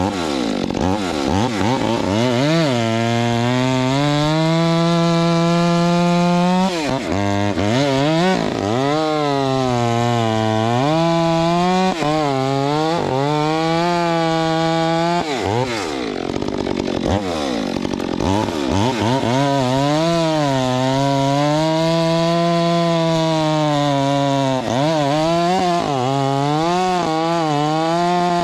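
Stihl MS 462 C two-stroke chainsaw bucking a hickory log: it runs at full throttle, its pitch sagging as the chain bites into each cut and climbing back between cuts, again and again. About halfway through it drops lower for a couple of seconds before it revs back up.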